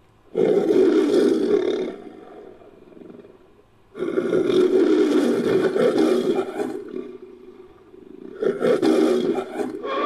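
Three lion-like creature roars from a made-up manticore sound effect, mixed from lion roars and monster sounds. The first comes about half a second in and trails off, a longer one starts at about four seconds, and a shorter one comes near the end.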